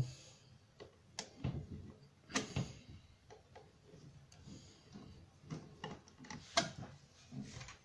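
Irregular light clicks and taps of a screwdriver against a long fixing screw and the plastic faceplate of a wall socket, as the screw is fed toward the back box's screw hole. The loudest taps come about two and a half and six and a half seconds in.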